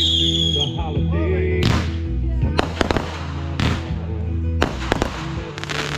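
Consumer fireworks going off: a whistle fades out in the first half-second, then a run of sharp bangs and cracks. Music with a steady bass line plays under them.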